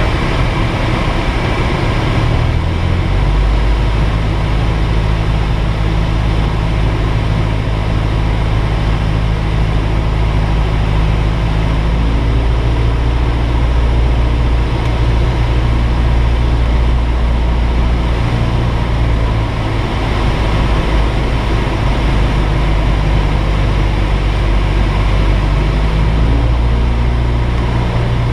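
Single-engine light aircraft's piston engine and propeller droning steadily in cruise, heard from inside the cockpit with rushing airflow. The low drone shifts about three seconds in, then holds steady.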